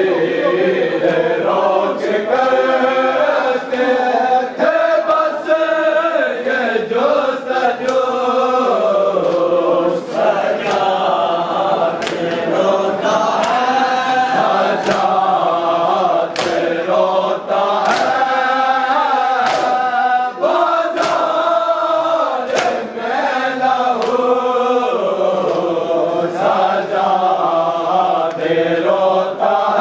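Mourners chanting a noha together in unison, over a steady beat of sharp slaps of hands striking chests (matam) about once a second.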